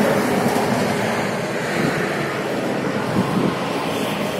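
Steady road traffic noise: vehicles running along the road nearby, with no single sharp event.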